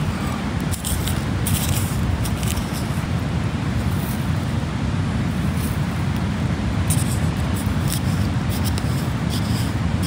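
Wind buffeting the microphone, a steady low rumble, with a few brief clicks on top.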